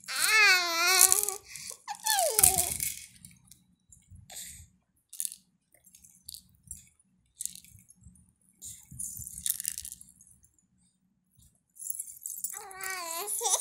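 A baby vocalising in high, wavering squeals at the start and again near the end, with a falling squeal about two seconds in. In between, a small plastic toy rattle is shaken in short, scattered bursts.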